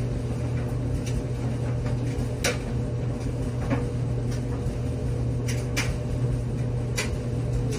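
Steady low hum, like a running kitchen appliance, with a faint steady tone above it and a few scattered light clicks and knocks.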